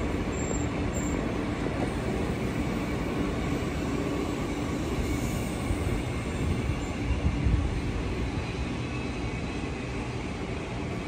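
Passenger train running through the station, its coaches rolling past on the rails with a steady rumble that swells a little about seven seconds in.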